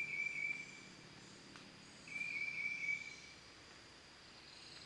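A high, steady-pitched trilling call, about a second long, heard at the start and again about two seconds in, over faint background hiss.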